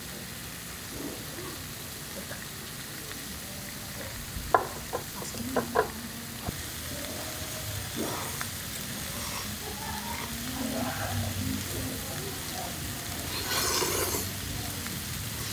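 Steady sizzle and bubbling of a tabletop pan of broth, pork belly and king clam cooking, with a few light clinks of utensils on bowls around the middle. Near the end comes a loud slurp of noodles.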